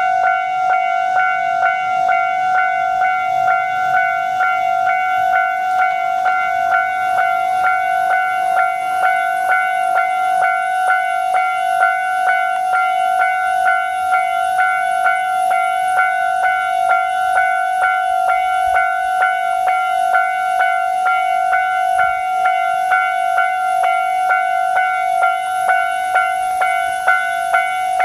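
Japanese railway level-crossing electronic warning bell ringing, a steady, rapid, evenly repeated ding at one pitch: the crossing's standard signal that a train is approaching.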